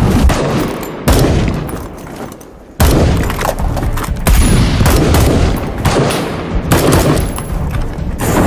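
Gunfire in a dense barrage with booming reports. A loud volley starts about a second in and trails off, then a heavier, continuous salvo begins about three seconds in.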